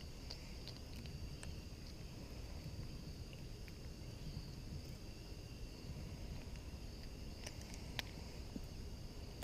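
Insects calling in a steady, continuous high drone over a low rumble, with a few faint clicks and one sharper click about eight seconds in.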